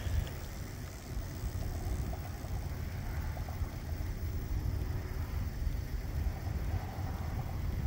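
Micro RC rock crawler's small electric motor and gears whining in short spells as it creeps up a rock face, over a steady low rumble of wind on the microphone.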